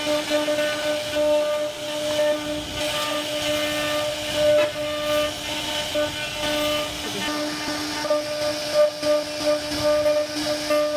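CNC router spindle running with a steady high whine over a hiss as its bit carves a relief pattern into wood. The loudness swells and dips slightly as the cut loads the bit.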